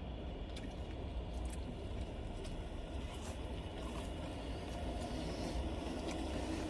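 Quiet eating sounds, faint chewing and the rustle of burger wrappers, over a steady low rumble.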